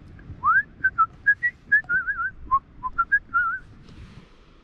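A person whistling a short tune: a rising note, then a string of short notes at different pitches with two warbling trills, stopping about a second before the end.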